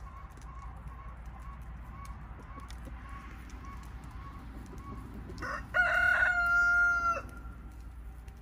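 A rooster crows once, about five and a half seconds in: a single long crow held for about a second and a half. Before it, hens cluck softly with evenly repeated short notes about twice a second.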